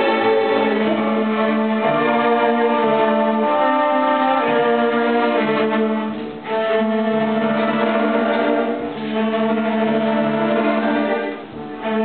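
Orchestra with violins and cellos playing long, held notes, with short breaks between phrases about six, nine and eleven and a half seconds in.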